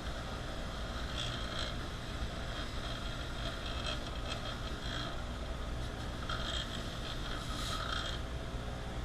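A motor running steadily, with several bursts of rasping, scraping noise as the rusted wrench is worked against it.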